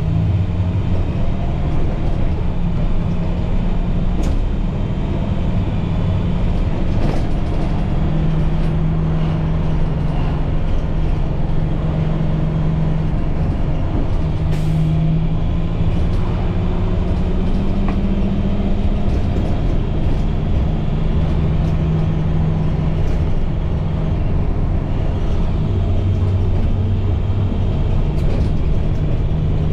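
International MaxxForce DT inline-six diesel of a school bus running under way, a steady low engine hum whose pitch moves up and down slightly a few times, with road rumble.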